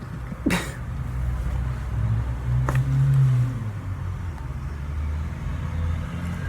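Low rumble of a motor vehicle engine that swells and rises slightly in pitch about two to three seconds in. A sharp click comes about half a second in and a smaller one near three seconds.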